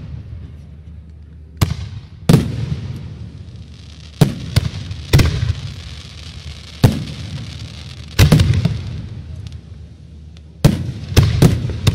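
Fireworks display: about ten aerial shell bursts at irregular intervals, each a sharp bang followed by a rumble that dies away over a second or so. Three come in quick succession near the end.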